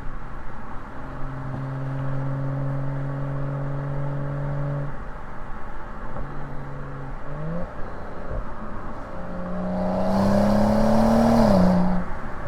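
BMW 335i's turbocharged N55 inline-six through its stock exhaust: steady running for the first few seconds, a short rise in pitch a little past halfway, then a louder pull rising in pitch from about ten seconds in that steps down sharply near the end, an upshift.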